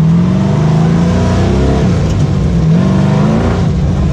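Sandrail's 6.0-litre LS V8 revving hard, its pitch climbing steadily, dipping and climbing again, then falling back near the end.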